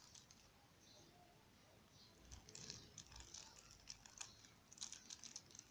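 Faint crinkling of a small plastic zip-lock seed bag being handled by fingers, in a few short spells of light crackles.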